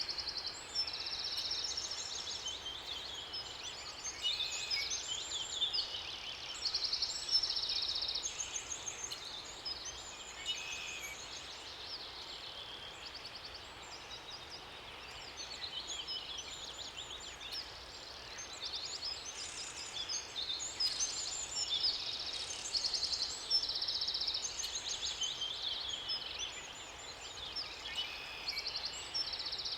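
Several songbirds singing at once, overlapping phrases of quick chirps and trills one after another, over a faint steady hiss.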